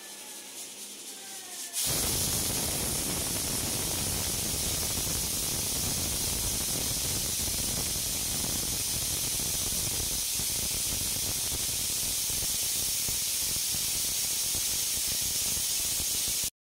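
Pressure cooker on a gas burner venting steam. After a quieter opening with faint rising tones, a loud steady hiss of steam escapes past the weight valve from about two seconds in, the sign that the cooker has come up to pressure. It cuts off suddenly near the end.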